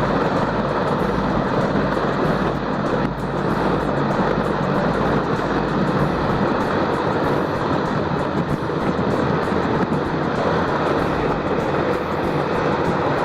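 Mi-26 heavy-lift helicopter's turbine engines and rotor running steadily, a loud even noise.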